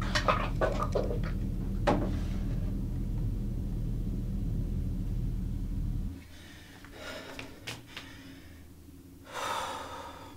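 A few clicks and knocks of objects being handled, over a steady low hum that cuts off suddenly about six seconds in. Then a man breathes heavily twice, in loud noisy breaths.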